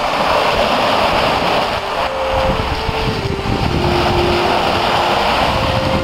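Small sea waves washing onto a shingle beach, with steady wind buffeting the microphone.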